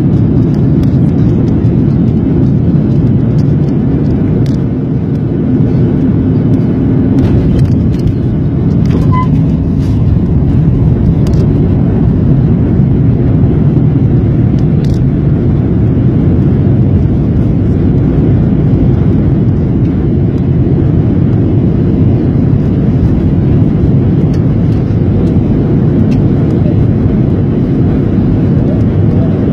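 Jet airliner cabin noise during landing: the steady, loud roar of the engines and rushing air heard from a window seat over the wing as the plane touches down and rolls out on the runway with its ground spoilers raised.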